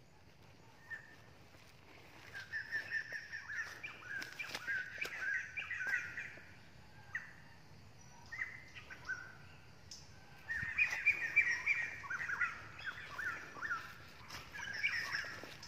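Birds chirping in two bouts of quick, repeated high chirps, the first starting about two seconds in and the second around ten seconds in, with scattered faint clicks and rustles.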